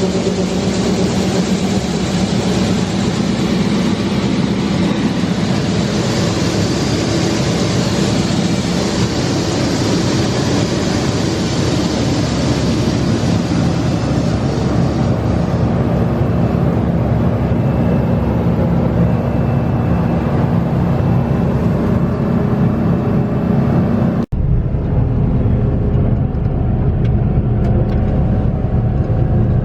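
Heavy farm machinery engine running steadily under load. About 24 s in it breaks off sharply and gives way to a duller, lower-pitched engine sound.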